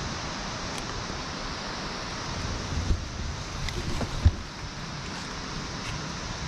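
Steady rushing outdoor background noise, with two low thumps about three and four seconds in, the second one the louder.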